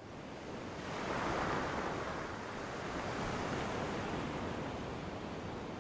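Ocean surf washing on a beach, fading in at the start and swelling about a second in, then a steady wash.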